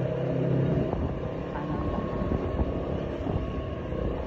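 Engine of a small vehicle running steadily as it drives along a road, with a low road rumble.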